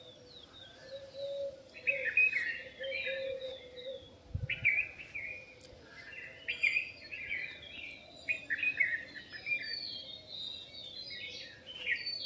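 Dawn chorus of many small birds chirping and twittering together, in overlapping short bursts of calls.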